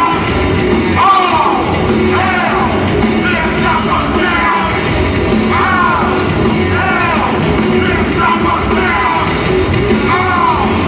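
Rap-rock band playing loud and live in an arena: distorted guitar, bass and drums with shouted vocals, and repeated high swooping sounds over the top.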